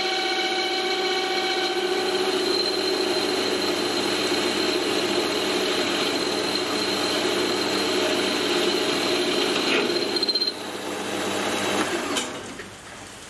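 Metal lathe cutting tool chattering against a steel workpiece, a steady high squeal with several tones, which the machinist puts down to a spindle speed he cannot lower. The squeal drops about ten seconds in and dies away shortly after.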